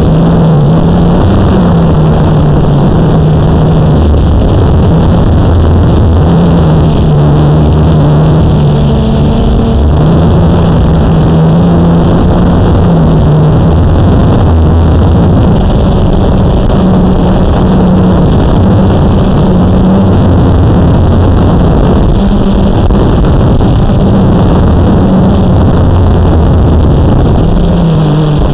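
Blade 350 QX quadcopter's electric motors and propellers buzzing loudly, the pitch stepping up and down every second or two as the motors change speed.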